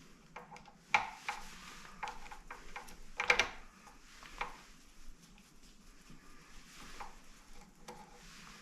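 Scattered small metal clicks and taps of a screwdriver and screws as screws are backed out of a KitchenAid stand mixer's gear housing, with a sharper clink about a second in and a brief cluster of clinks about three seconds in.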